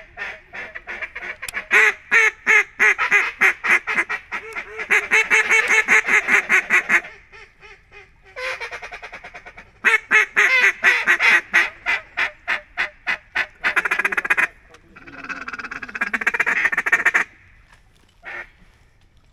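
Duck calls blown hard in long runs of rapid, loud quacks, three long sequences with short breaks and a brief burst near the end: hunters calling to ducks circling over the timber.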